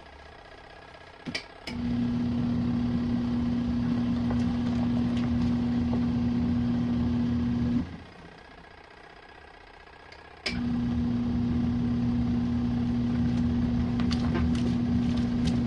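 Compact twin-tub washing machine's wash motor agitating the load in runs of about six seconds with a steady hum, stopping for about three seconds between runs, with a click as each run starts.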